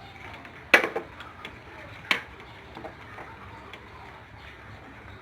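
Two sharp clicks or knocks about a second and a half apart, followed by a few faint ticks.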